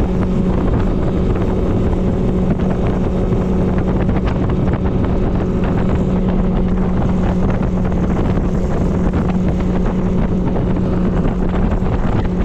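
Boat's outboard motor running at a steady speed underway, an unchanging drone, with wind buffeting the microphone.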